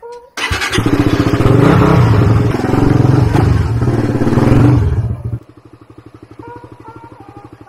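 Suzuki GSX-S150's single-cylinder four-stroke engine running loud as the bike rides off, then dropping to a quieter, evenly pulsing idle a little past five seconds in as the bike stops.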